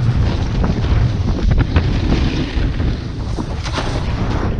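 Wind buffeting the microphone of an action camera on a riding snowboarder, with a low rumble throughout and the snowboard's edges scraping over the snow in short rasps.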